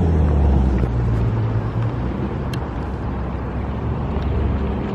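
Outdoor traffic noise: a car engine running close by, a steady low rumble that is strongest in the first two seconds. A faint click comes about two and a half seconds in.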